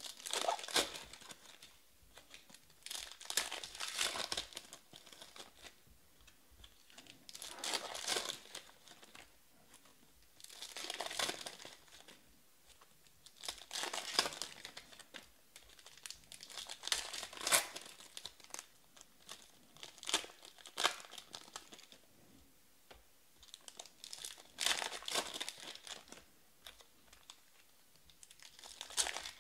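Plastic-foil trading card pack wrappers crinkling and tearing as packs are opened by hand, in about nine short bursts a few seconds apart.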